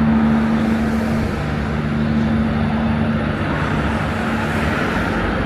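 Electric suburban train at the station: a loud, steady rumble with a low hum that drops out about three and a half seconds in.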